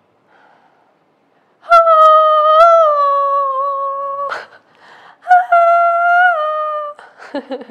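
A woman's voice holding two long, high sung notes, a few seconds each, with a quick breath between them and short voice sounds near the end.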